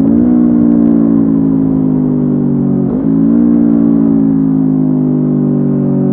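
Honda CB500F parallel-twin engine through a Mivv GP Pro aftermarket exhaust, running under way with its note slowly falling. About three seconds in the note briefly drops and jumps back up, a gear change.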